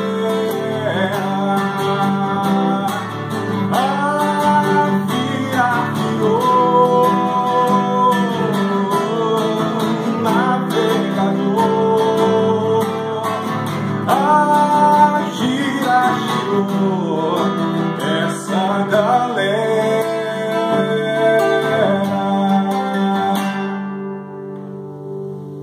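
A man singing over a strummed nylon-string classical guitar. Near the end the voice stops and a last chord rings on and fades.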